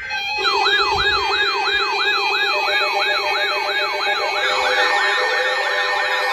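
Electronic siren sounding repeated falling sweeps, about three a second, over a steady low tone. About five seconds in, a second overlapping siren pattern joins.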